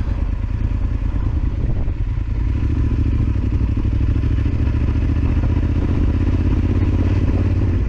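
Yamaha Super Ténéré XT1200Z's parallel-twin engine running steadily at low speed on a muddy trail, its note getting a little louder about two seconds in.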